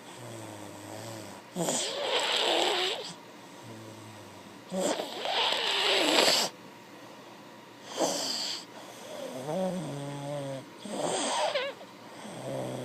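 Snoring in a regular rhythm: four loud, rasping snores about three seconds apart, with quieter low-pitched humming breaths between them.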